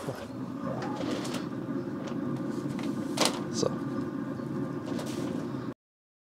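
Activa pellet smoker running with a steady low hum, with two sharp clacks a little over three seconds in. The sound cuts off suddenly near the end.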